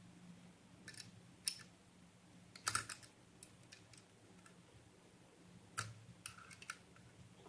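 Spanner working a nut onto the ceiling fan's downrod bolt: a series of irregular clicks and clinks, the loudest cluster about three seconds in.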